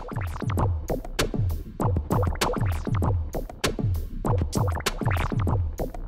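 Electronic background music with a steady drum-machine beat, about two kick-drum thumps a second with crisp hits between them.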